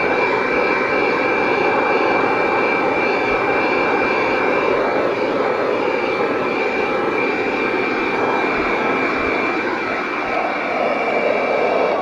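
Piranha PVC-4004 12-volt handheld car vacuum running steadily as it sucks dust and grit from the floor carpet: a rush of air with a steady high whine from the motor.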